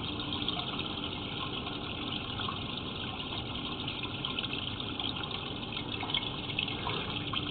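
Steady rush of running water, even throughout, with a faint hum under it.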